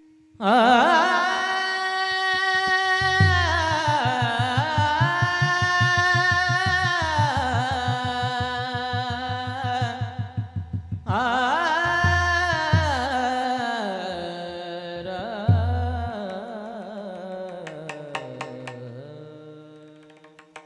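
A man singing a long, slow wordless devotional melody over a steady instrumental drone, with drum strokes joining in about three seconds in and stopping around eleven seconds; the voice then resumes and fades.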